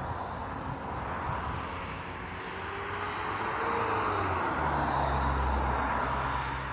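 Road traffic from a nearby motorway: a vehicle passing, its tyre and engine noise swelling to the loudest point a little past the middle, with a low engine hum coming in about two-thirds of the way through.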